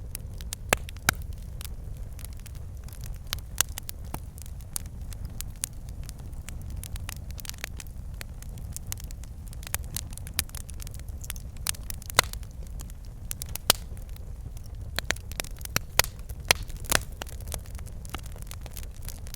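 Wood fire in a fireplace crackling and popping over a low steady rumble of flames, with irregular sharp pops, a few of them loud.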